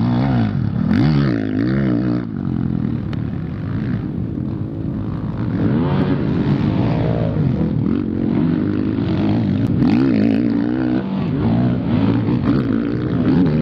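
Motocross bike engines revving hard, the pitch climbing and dropping again and again with the throttle.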